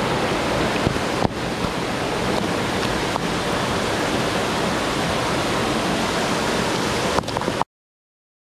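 Steady rush of a small forest waterfall spilling into a rocky stream pool, with a few faint knocks. The sound cuts off abruptly about seven and a half seconds in, leaving dead silence.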